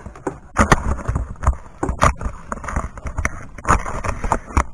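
A socket ratchet clicking and knocking in uneven bursts as a spark plug is worked loose through a spark plug socket on extensions.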